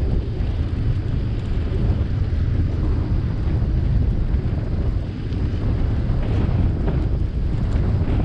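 Wind buffeting the microphone of a camera riding along on a moving bicycle, a steady low rumble.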